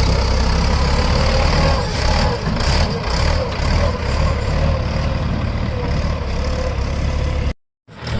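Heavy diesel engine running steadily with a deep, low rumble. The sound cuts out completely for a moment near the end.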